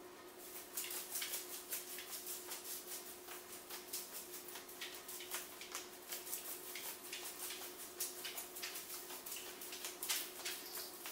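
Loose, unspooled VHS videotape rustling and crackling as it is handled, with irregular crisp crinkles several times a second. A faint steady hum runs underneath.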